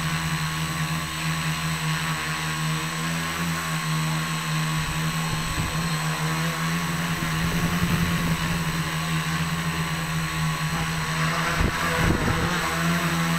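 A tricopter's three electric motors and propellers running steadily, heard from the camera mounted on board as a strong even hum with higher overtones and a constant hiss. A few brief low rumbles break through midway and near the end.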